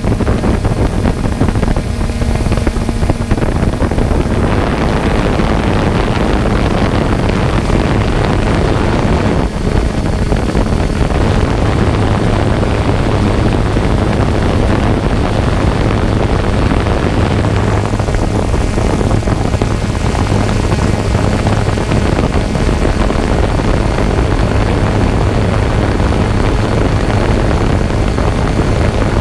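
Quadcopter drone's electric motors and propellers running in flight, heard up close from the camera on the drone: a loud, steady low hum over a whirring rush.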